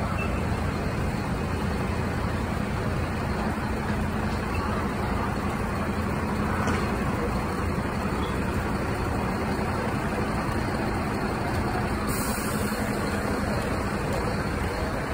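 Parked fire trucks' engines running steadily, a continuous low hum mixed with street traffic noise.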